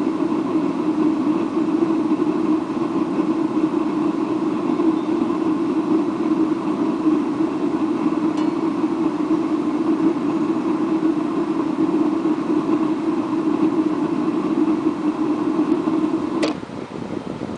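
Atwood RV water heater's propane burner running with a steady roar, cutting off abruptly with a click near the end. Despite the long burn the water stays only tepid, a sign the owner cannot explain.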